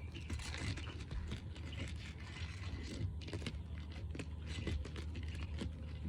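Sealed asphalt shingle being pulled up off its seal strip: a run of irregular crackling and scraping clicks as the brittle shingle tears loose, over a steady low hum.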